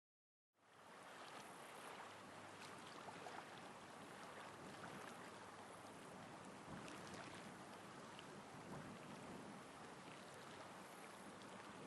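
Soft ocean waves rolling in with a light wind: a faint, steady wash that fades in about half a second in.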